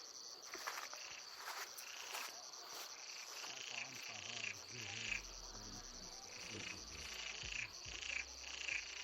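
Frogs calling in short repeated croaks, about two a second, over a steady high insect trill.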